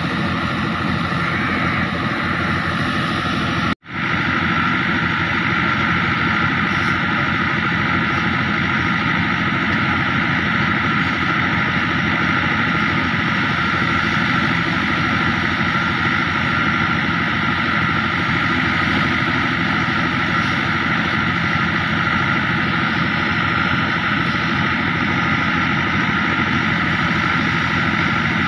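Fiat 640 tractor's four-cylinder diesel engine running steadily under load, driving a thresher whose drum whirs and rattles as dry crop is fed through. The sound cuts out for an instant about four seconds in, then runs on unchanged.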